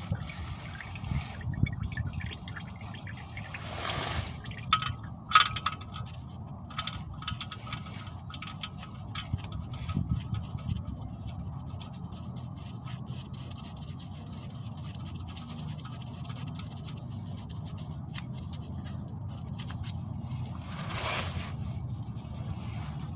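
Old engine oil dripping and trickling from the drain hole into a drain pan, with scattered clicks and knocks of tools being handled and one sharp knock about five seconds in.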